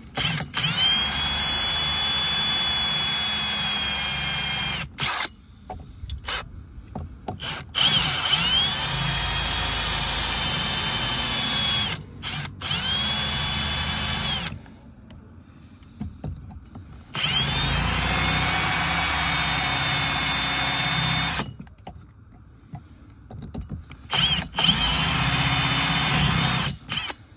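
Power drill with a twist bit drilling out the side of a hose bib's threaded attachment, run in five bursts of a few seconds each with short pauses between.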